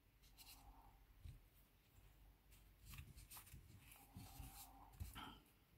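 Faint rustling and small clicks of hands working a metal crochet hook and cotton thread through stitches.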